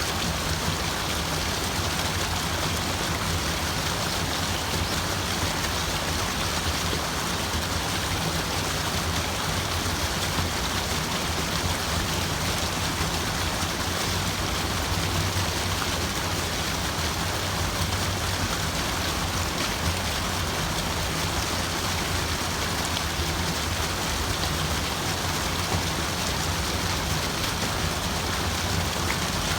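Running water, rushing steadily without pause, like a stream or small waterfall.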